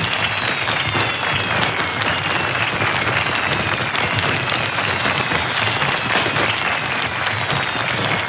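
A crowd applauding steadily, mixed with the crackle of fireworks. Several thin whistles slowly fall in pitch and overlap one another.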